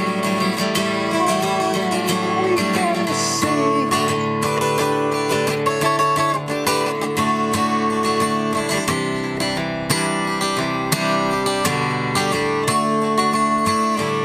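Acoustic guitar being strummed, a steady run of chords with no singing over it.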